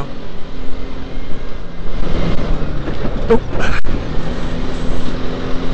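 Trail motorcycle riding along a gravel track: the engine runs at a steady pace under loud, gusty wind rumble on the helmet microphone.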